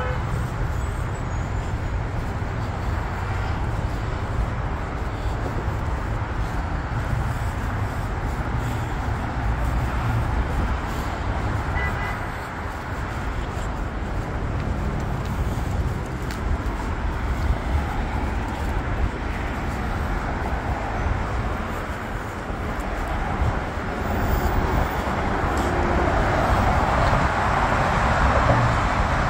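Steady hiss and rumble of road traffic from a busy multi-lane highway, getting louder near the end.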